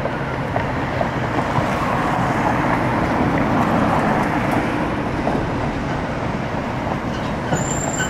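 Road traffic passing close by: a car and then a passenger van go by, their tyre and engine noise swelling a little around the middle. A shuttle bus arrives near the end, with a brief high squeal.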